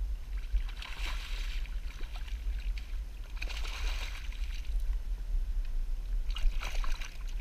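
Hooked bass thrashing and splashing at the surface beside a kayak: three splashy bursts about two and a half seconds apart, over a steady low rumble.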